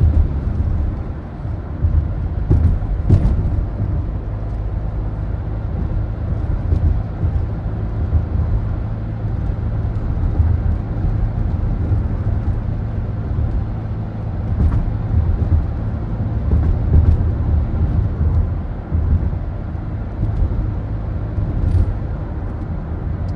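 Ford Focus diesel car driving, heard from inside the cabin: a steady low engine and road rumble, with a few light knocks and clicks from bumps in the road.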